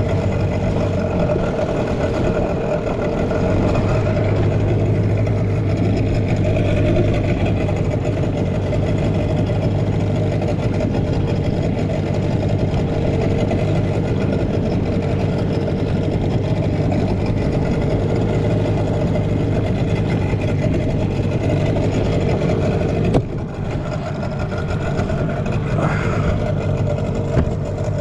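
12 hp outboard motor on an inflatable boat running steadily under way at a constant throttle, its note briefly dipping about 23 seconds in.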